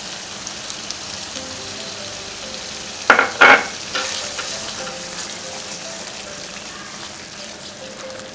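Onion-tomato masala sizzling steadily as it fries in oil in a pan while yogurt is stirred into it with a metal spoon. A little after three seconds in, the spoon scrapes loudly against the pan twice, about half a second apart.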